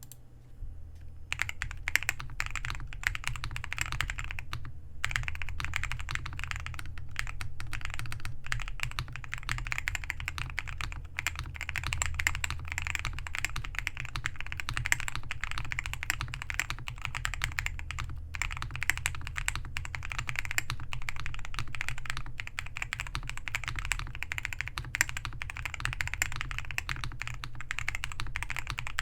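Fast, continuous typing on a custom MW65 gasket-mounted mechanical keyboard with lubed Akko Vintage White switches, a PC plate, PE foam and tape mods, giving a clacky keystroke sound. The typing breaks off briefly about five seconds in, then carries on.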